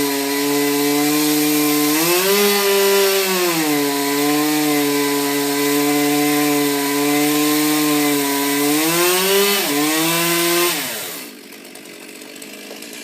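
Chainsaw running at high revs, its pitch rising and falling twice as it works. It then winds down and stops about eleven seconds in.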